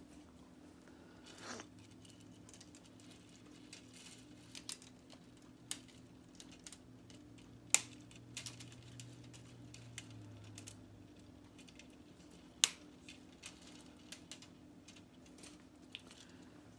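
K'nex plastic rods and connectors clicking and snapping together as spokes are pushed into place by hand. The light clicks are scattered, with a few sharper snaps, the loudest about 8 and 13 seconds in, over a faint steady hum.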